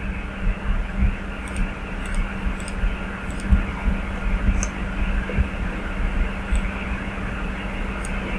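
Steady background hum and hiss, with several faint, short clicks scattered through, typical of a computer mouse selecting items.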